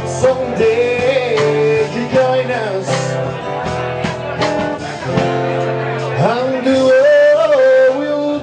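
A man sings a melody into a microphone over a strummed acoustic guitar, played live.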